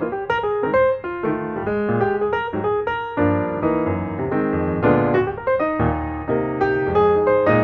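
Background piano music: a steady stream of quick notes, several struck each second, each fading away.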